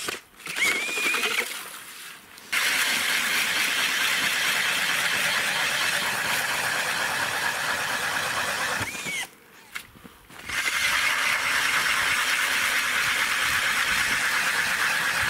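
Cordless drill turning an ice auger that is grinding down through ice: a steady whirring grind that stops briefly three times, near the start, about two seconds in, and around nine to ten seconds in.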